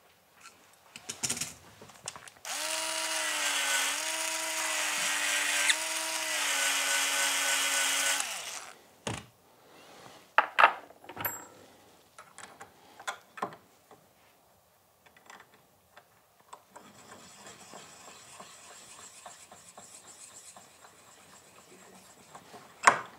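Small electric case-prep tool, a Hornady deburring tool that works like a cordless screwdriver, running for about six seconds, its pitch dipping briefly twice as if under load. Scattered clicks and knocks of handling follow.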